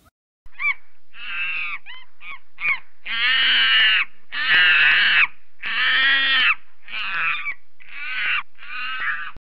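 A series of about ten harsh animal calls: a few short ones at first, then longer drawn-out calls of up to a second each, cutting off abruptly near the end.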